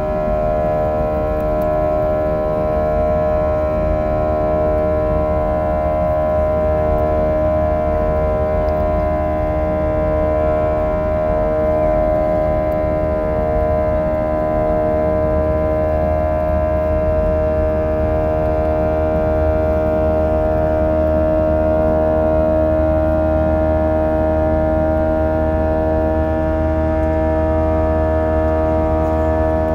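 Airliner cabin noise during descent: the jet engines drone steadily, several steady tones over a low rumble. Some of the tones waver against each other in the first half.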